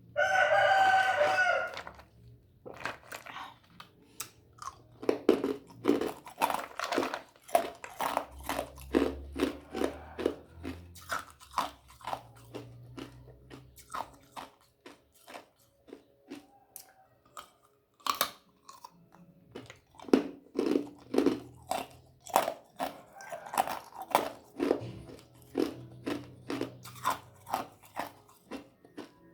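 A rooster crows once at the start, loud and about two seconds long. Then ice is crunched between the teeth for the rest of the time, in sharp, irregular crunches about twice a second.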